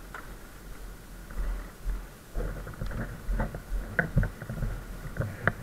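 Low rumble with irregular knocks and clicks that grow busier about a second and a half in: handling and bumping noise on the action camera as it is moved about among the parked karts.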